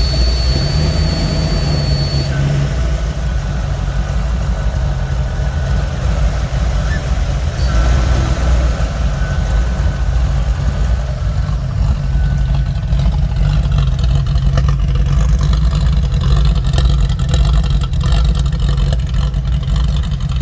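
Car engine running with a hiss and a thin, steady whistle over the low engine sound; the whistle is very high for the first two seconds, then lower, and fades about halfway. The owner suspects a vacuum leak.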